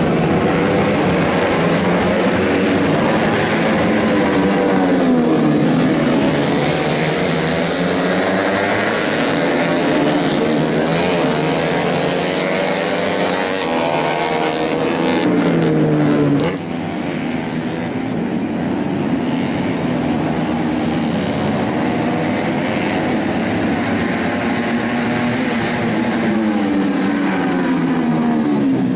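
Several 125cc four-stroke underbone racing motorcycles revving hard as they pass in a pack, their engine notes climbing and falling again and again through the gear changes. The sound cuts abruptly to a slightly quieter stretch about halfway through.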